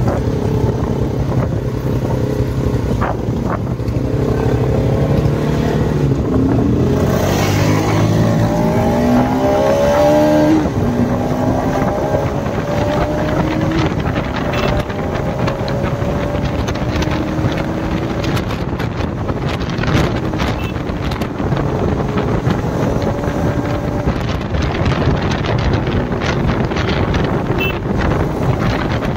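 Motorcycle engine running under way, its pitch climbing as it revs up a few seconds in, then holding steadier. Wind buffets the microphone throughout.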